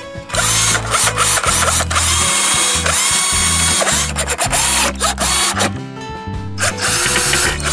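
Black+Decker cordless drill-driver driving wood screws through a wooden plank into the rim of a plastic mortar tub. It runs in one long stretch, drops off briefly about six seconds in, then runs again near the end.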